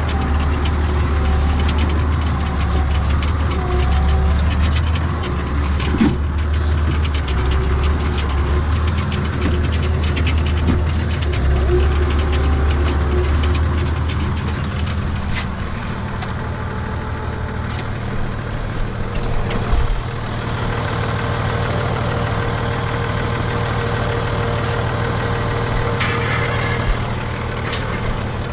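Renault tractor's diesel engine running steadily, heard from inside the cab, with the engine note changing about halfway through.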